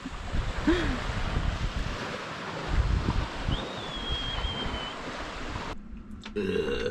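Wind buffeting the microphone over the wash of waves, with a brief thin whistle midway. The sound cuts off abruptly near the end.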